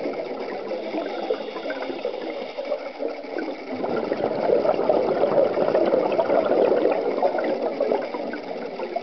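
Air bubbles crackling and gurgling underwater, a dense stream of tiny pops. It is softer at first and grows louder from about four seconds in until near the end.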